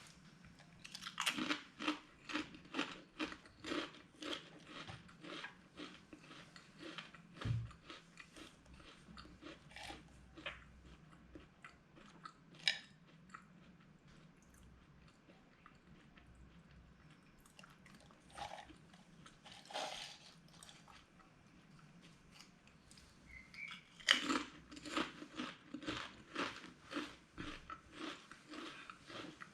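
A person chewing crunchy spicy potato snacks with the mouth close to the microphone: quick crunches about three a second, in two bouts with a sparse stretch between.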